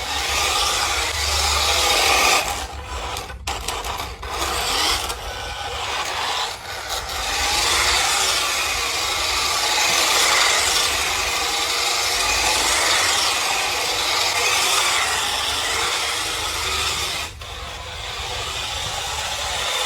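Toy RC car running: its small electric motor and plastic gears whirring and rasping, uneven at first, then steady.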